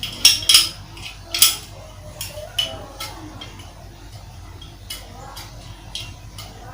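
A spoon knocking and scraping against cookware: a quick run of sharp clinks in the first second and a half, then sparser, fainter taps.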